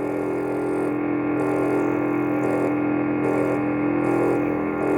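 Lightsaber idle hum from a Proffieboard sound font played loud through the Saberforge Sentinel hilt's speaker: a steady buzzing drone on one held pitch. A rattle rides on it from the recharge port on the dummy switch housing, vibrating in spite of blue Loctite.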